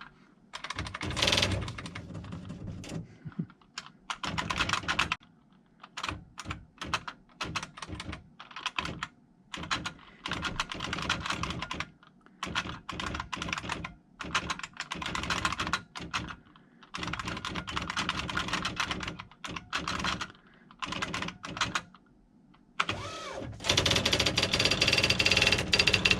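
IBM Wheelwriter 30 electronic daisy-wheel typewriter typing in irregular bursts: rapid clicks of the keys and print mechanism with short pauses between runs. Near the end a louder, steady sound takes over.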